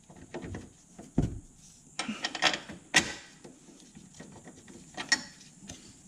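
Irregular metallic clicks and knocks of bolts being fitted by hand into a steel subframe brace bracket, with a dull thump just over a second in and a sharp click about three seconds in.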